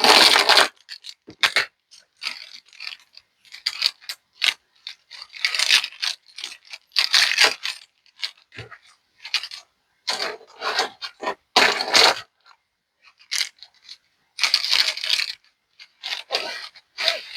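Irregular bursts of crinkling and rustling as paper is handled, a dozen or so short bursts with brief pauses between them.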